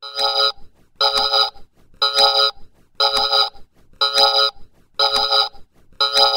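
An electronic tone beeping in regular half-second pulses about once a second, each pulse a chord of several pitches opening with a click.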